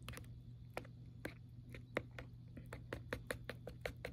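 Plastic fork stirring thick chili in a metal can, clicking and scraping against the can's side in short irregular ticks that come faster in the second half.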